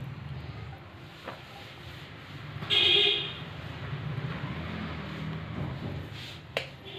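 A vehicle horn toots once, briefly, about three seconds in, over a steady low hum.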